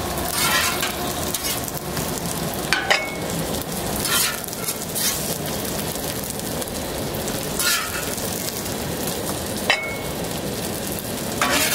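Eggs frying in oil on a Camp Chef flat-top griddle: a steady sizzle, broken about half a dozen times by brief scrapes and clicks of a metal spatula on the griddle and plates.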